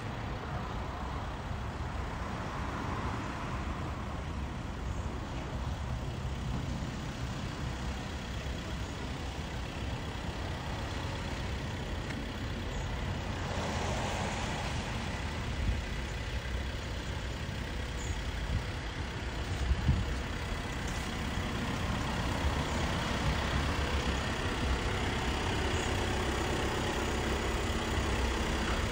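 Steady low rumble of road vehicles, an engine running and traffic on the road, with a couple of brief knocks partway through.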